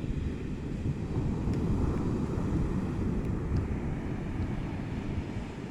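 Wind buffeting the microphone at the seashore: a steady, fluttering low rumble, with the sea's surf blended into it.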